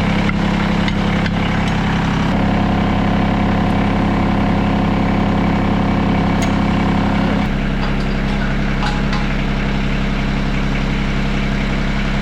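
LS MT225s compact tractor's diesel engine running steadily, its tone shifting about two seconds in and again about seven and a half seconds in, as engine speed or load changes. A few light clicks sound in the first second or so.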